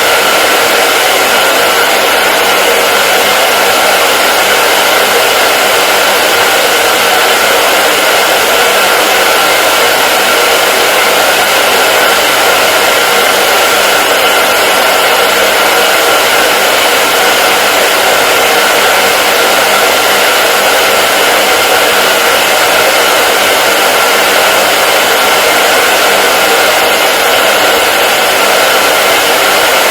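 Hair dryer running steadily: a continuous airy rush with a faint motor hum and whine underneath.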